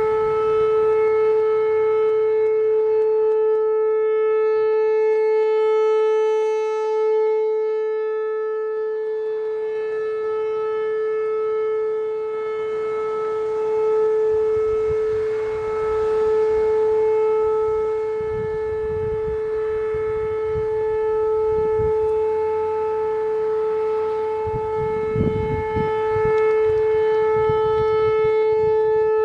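Whelen Vortex R4 rotating electronic outdoor warning siren sounding the Alert signal: one steady tone held at a constant pitch, swelling and fading slightly in loudness as the siren head rotates. A low rumble sits underneath in the second half.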